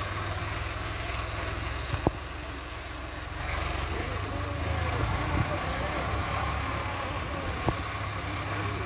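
Tractor diesel engine running with a steady low throb, with two sharp clicks, one about two seconds in and one near the end.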